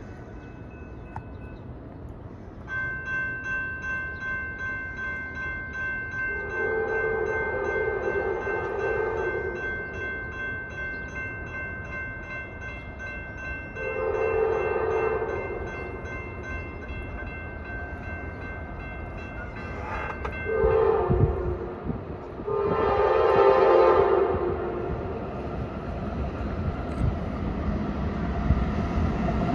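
The horn of a Norfolk Southern intermodal train led by two GE AC44C6M locomotives sounds the grade-crossing signal as it approaches: long, long, short, long. Under the horn, a crossing warning bell starts ringing a few seconds in and rings steadily until shortly before the last blast. Near the end the low rumble of the approaching train grows louder.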